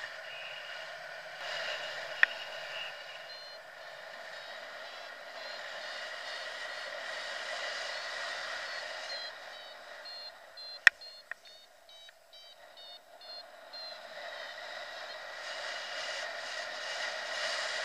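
Airflow rushing past a paraglider in flight, with a paragliding variometer giving rows of short, rapid high beeps through the middle, the tone it gives in rising air. Two sharp clicks stand out, one about two seconds in and a louder one about eleven seconds in.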